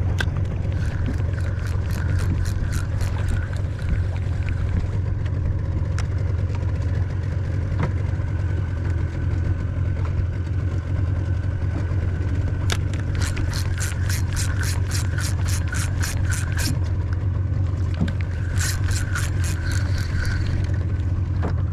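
Spinning reel cranked in three spells of rapid ticking, about five ticks a second, over the steady low drone of a small boat's engine.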